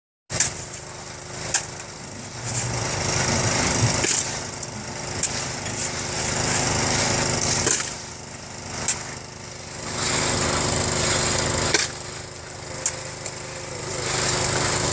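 A motor-driven machine running steadily, its sound swelling louder for a second or two about every four seconds, with sharp knocks now and then.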